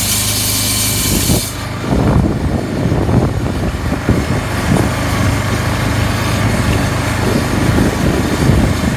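Quad bike engine running steadily while towing a chain harrow across dry, dusty soil. A bright scraping hiss, from the harrow dragging over the dirt, fills the first second and a half and then stops abruptly. After that the engine hum with an uneven lower rumble is left.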